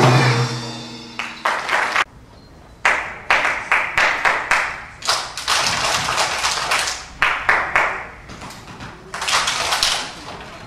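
A group of young children clapping their hands in a body-percussion routine: sharp claps, some single and some in quick runs, with stretches of dense clapping. A last ringing note from the instruments fades out in the first second.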